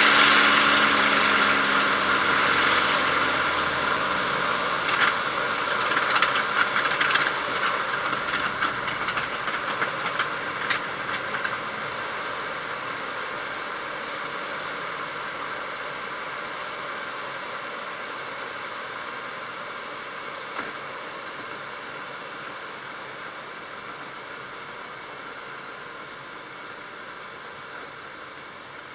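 P-51 Mustang's V-12 engine throttled back on landing, heard from inside the cockpit, with the engine and air rush dying away steadily as the aircraft slows on the runway. A high whine fades out about eight seconds in, and a cluster of knocks and rattles comes between about five and eleven seconds in.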